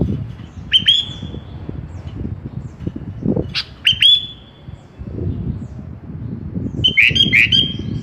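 Sooty-headed bulbul (kutilang) calling: quick upswept notes that each level off into a short held whistle. A pair comes about a second in, another pair about four seconds in, and a faster run of three or four near the end, over low rumbling background noise.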